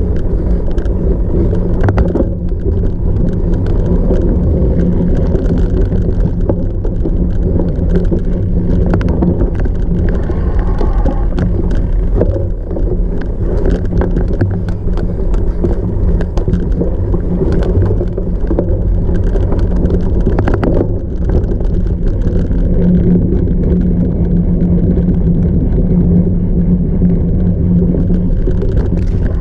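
A cyclocross bike ridden hard over rough off-road ground: a steady low rumble from the tyres and frame, with frequent clicks and knocks as it jolts over bumps.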